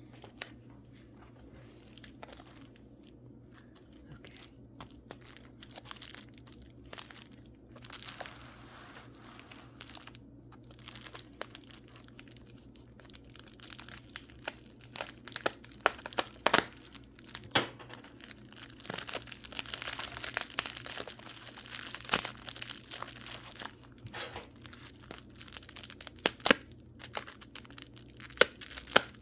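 Packing material around a mineral specimen being unwrapped by hand: crinkling, crackling and tearing, scattered at first and busier and louder through the second half.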